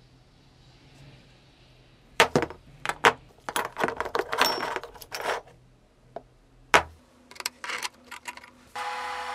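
Steel burner holders, pipe sections with clamp brackets and flat-bar arms, clinking and knocking against each other and the wooden workbench as they are handled and fitted, in several sharp clusters. Near the end a steady welding arc starts up and keeps going.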